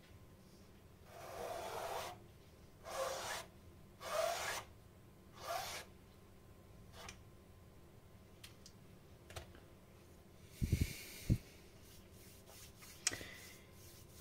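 Metal palette knife scraping wet paint across a canvas in four strokes of about half a second each, followed by a few light ticks and a short sharp knock about eleven seconds in.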